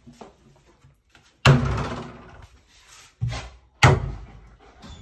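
Doors of a laminated wooden wardrobe being shut: a loud thud about one and a half seconds in, then two more knocks close together near the end.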